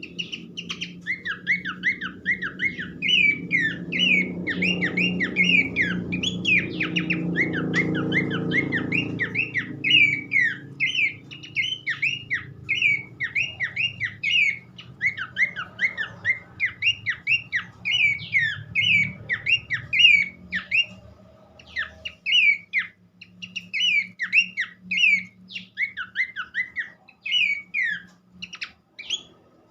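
Pelanduk semak babbler song: a fast, chattering run of short whistled notes that sweep up and down, several a second, with a brief break about two-thirds of the way through. A low rumble with a steady hum lies underneath, swelling in the first third.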